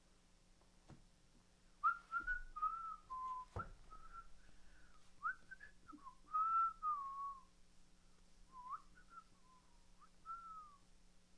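A person whistling a tune softly in short phrases that glide up and down, with a couple of light clicks.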